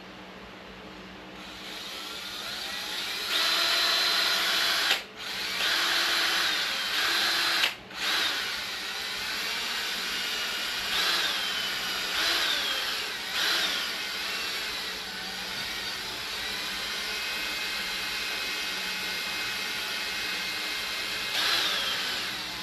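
Power drill spinning a homemade stirring paddle down inside a bottle of tinted Raptor coating, mixing it. The drill runs in spells, stopping briefly twice, with its speed rising and falling a few times.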